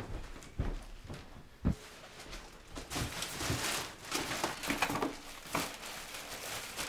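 A few soft thuds, then plastic carrier bags rustling and crinkling as groceries are lifted out and set down on a kitchen worktop, with small knocks of items placed on the counter.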